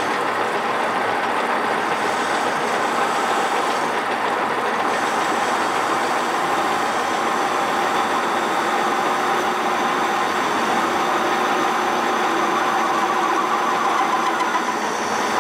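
Metal lathe running under load as the cutter in a tangential tool holder takes a 1 mm plunge cut into a spinning metal bar: a steady cutting and machine noise with no break.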